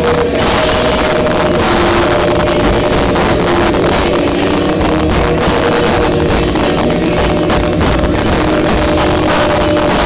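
Loud rock music: a dense wall of sound with several long held notes throughout.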